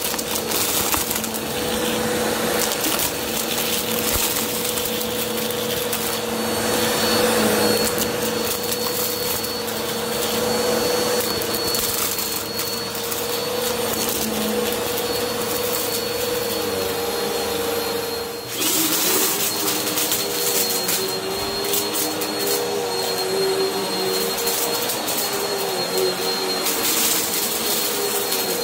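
Bissell upright vacuum cleaner running steadily on carpet, a constant motor whine with scattered clicks and rattles as popcorn and hard kernels are sucked up. About two-thirds through, the sound dips briefly and the motor's pitch shifts and wavers.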